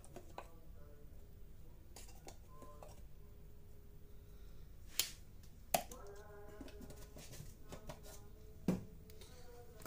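Quiet kitchen room tone with a faint steady hum, broken by three short sharp clicks about five, six and nine seconds in.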